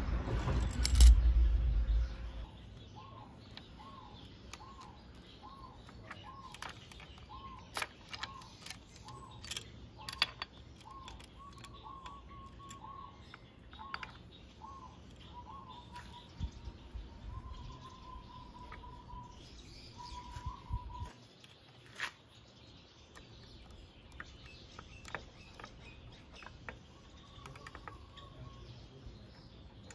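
A bird calls repeatedly in the background, a short note about every half second that later stretches into longer trilled notes. Under it are faint metallic clicks and clinks from small engine parts being handled, and a loud knock with a rumble in the first couple of seconds.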